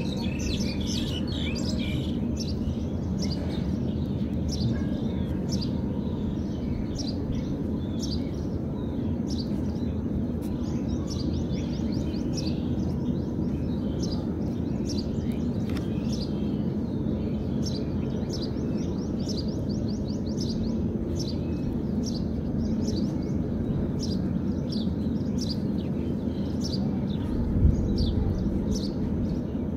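Small birds chirping continually, many short high chirps, over a steady low background noise. A single low thump near the end.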